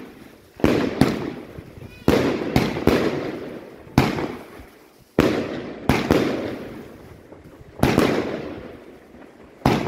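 Funke willow-effect firework cake firing about ten shots at irregular intervals of half a second to a second. Each shot is a sharp report followed by a fading tail.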